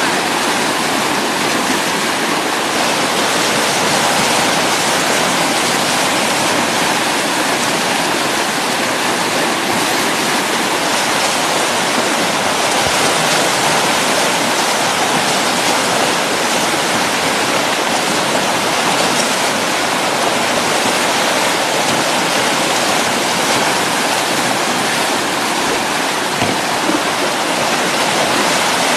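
Whitewater rapid rushing loudly and steadily, an even hiss of churning river water with no breaks.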